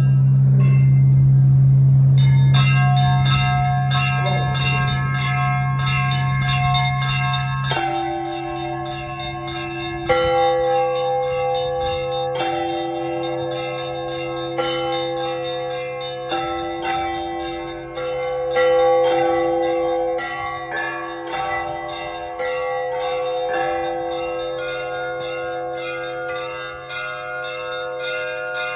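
Russian Orthodox church bells pealing: a deep bass bell hums at the start while small high bells are struck in a quick, even rhythm of about three strokes a second. Middle bells join at a lower pitch about eight seconds in.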